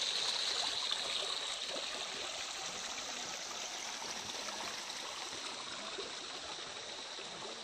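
Shallow stream running over rocks and pebbles: a steady rush of water that slowly grows fainter.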